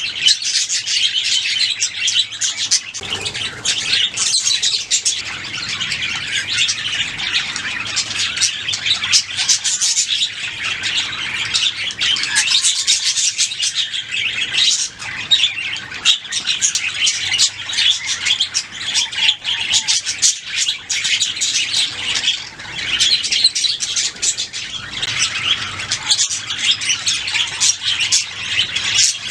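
Budgerigars chirping and warbling continuously, a dense flock chatter of many short high chirps with occasional squawks.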